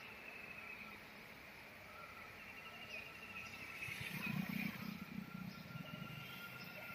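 Two dogs growling at each other as they play-fight: a short rough growl swells about four seconds in, over a faint outdoor background.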